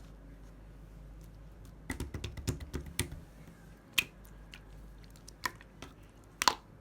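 Clay-mixed slime being squeezed and poked by hand, making a quick run of small clicks and pops about two seconds in, then a few single sharp pops, the loudest near the end.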